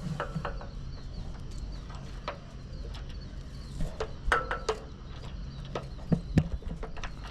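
Scattered clicks, knocks and short creaks of a line being handled and tied off on a cleat, the loudest knocks about four and six seconds in, over a low steady hum.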